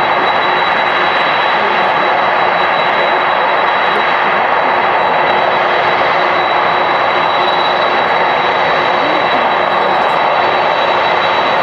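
Boeing 747-400 freighter's four jet engines running at taxi power as the jet turns onto the runway: a steady, loud rushing noise with a high whine held throughout.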